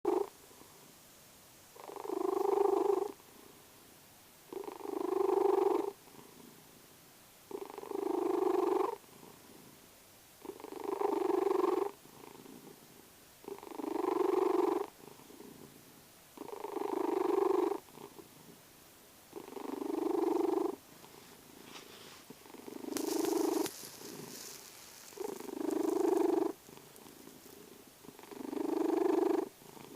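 Domestic cat snoring, one breath sound about every three seconds, each lasting a little over a second with quiet gaps between. A brief rustle comes about three-quarters of the way through.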